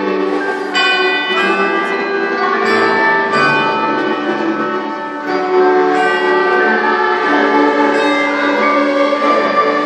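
School string orchestra of cellos, classical guitars and other strings playing a piece in held, changing notes, a little softer about five seconds in and then swelling again.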